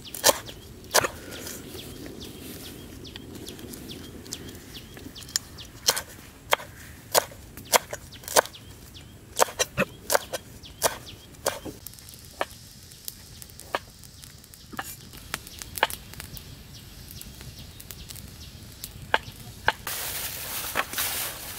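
Irregular sharp taps and knocks, sometimes two or three in quick succession, with a hissing noise rising near the end.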